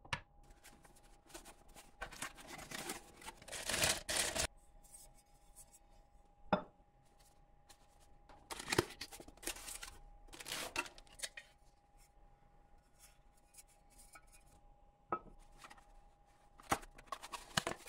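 Hands handling and opening small cardboard product boxes: rustling and scraping of cardboard in two longer stretches, with several sharp taps as flaps snap or items are set down.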